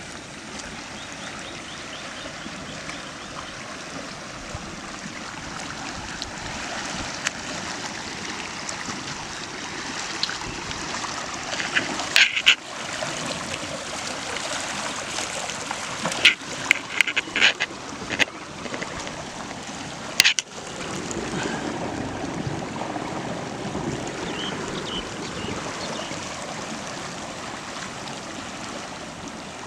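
Water flowing in a stream, a steady rushing, with a few sharp clicks or splashes around the middle.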